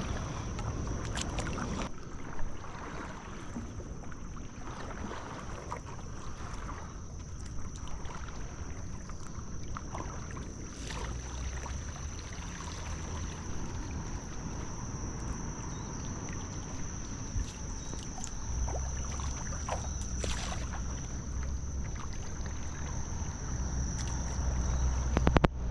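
Paddle strokes on calm river water from a paddleboard: the blade dipping and pulling with light splashes and drips. A steady high-pitched whine runs throughout, and a low rumble swells near the end.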